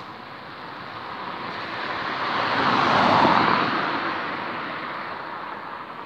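A car passing on the road, its tyre and engine noise swelling to a peak about three seconds in and then fading away.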